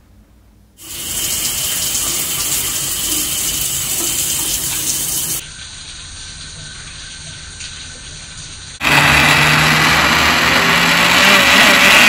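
Water running in a shower as a steady hiss, quieter from about five seconds in. At about nine seconds a countertop blender starts running loudly: a steady motor hum under the whir of blending a smoothie.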